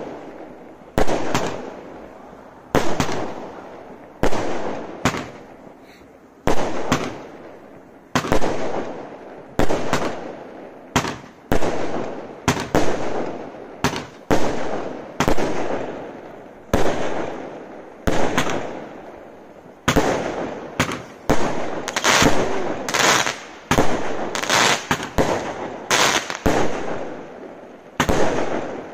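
Consumer firework barrage cake (the Caractacus Potts Spiderman cake) firing shot after shot: a rapid series of sharp bangs, about one to two a second and coming faster in the second half, each followed by a short fading tail as the shells burst.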